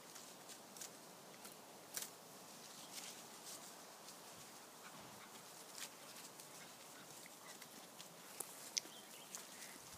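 Faint, quiet outdoor sound of puppies moving through grass and dry leaf litter: scattered light ticks and rustles, with a brief high squeak near the end.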